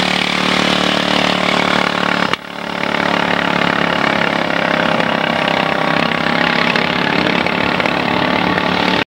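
An engine running steadily at an even pitch, with a brief break about two seconds in.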